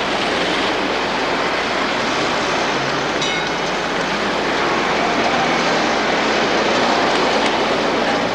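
Steady, dense traffic noise from a busy street, with a brief faint high-pitched tone about three seconds in.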